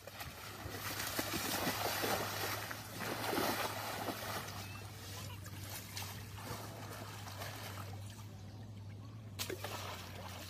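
Asian elephant wading and lying down in a muddy wallow, wet mud sloshing and splashing around its body, loudest in the first few seconds.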